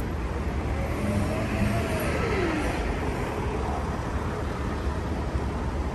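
Steady low rumble of city street traffic and motor vehicle engines.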